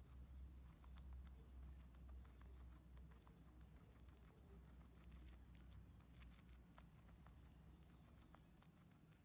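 A guinea pig chewing and tearing crisp leafy greens: many small, irregular, faint crunching clicks, over a low steady hum.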